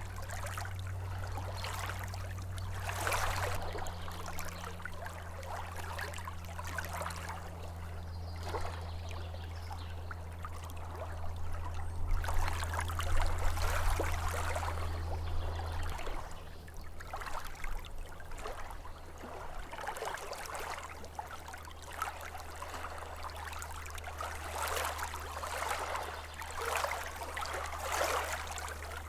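Small waves lapping at a lake shore, washing in irregular surges every second or two, with a steady low hum underneath.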